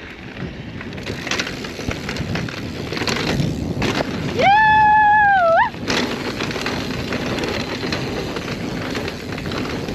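Mountain bike descending a rough, rocky trail: tyres rolling over rock and dirt with the bike rattling and knocking, and wind rushing on the microphone. About halfway through, a loud high tone is held for about a second, rising at its start and end.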